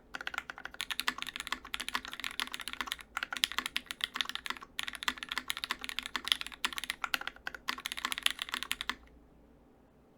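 Fast typing on a Mech27v2 TKL custom mechanical keyboard with lubed Cherry Hyperglide MX Black linear switches on an aluminium plate and GMK keycaps: a dense run of key clacks with two brief pauses. The typing stops about nine seconds in.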